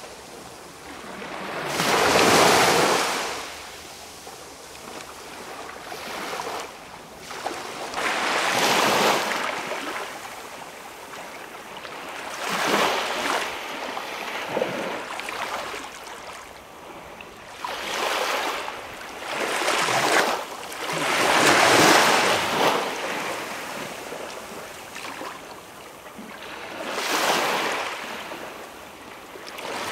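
Small waves washing onto a calm beach, each one a swell of surf noise that rises and falls away, about six of them at uneven intervals of a few seconds.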